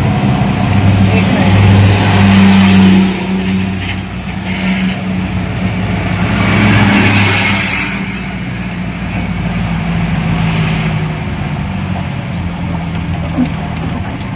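Vehicle engine and road noise heard from inside a moving vehicle: a steady low hum that swells louder twice, about two seconds in and again about halfway through.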